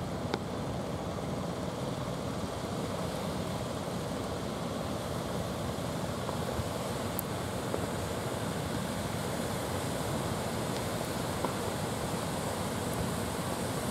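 Sea surf washing onto the shore with wind, a steady rushing noise.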